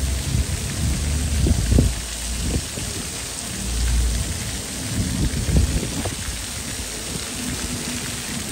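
Jets of a ground-level plaza fountain splashing down onto wet paving: a steady, rain-like spatter. Low rumbles rise and fall underneath.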